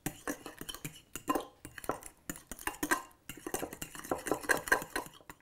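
A utensil stirring balsamic vinegar into mayonnaise in a bowl, clicking and scraping against the bowl in quick, irregular strokes that cut off near the end.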